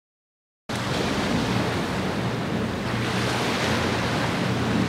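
Steady wind and sea noise on an outdoor microphone, with a low hum underneath, starting suddenly about a second in.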